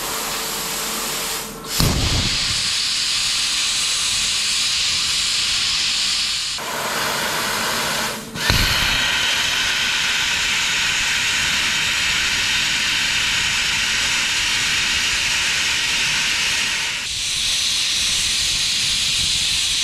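Plasma cutter torch gouging out a weld in steel: the steady loud hiss of the compressed-air plasma arc, scarfing the weld metal away. The arc breaks off briefly and restarts with a sharp pop about two seconds in and again about eight seconds in, and its hiss turns sharper near the end.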